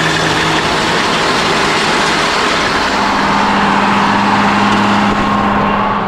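Farm tractor engine running steadily with the PTO engaged, a loud even mechanical noise; its hum steps up in pitch about halfway through.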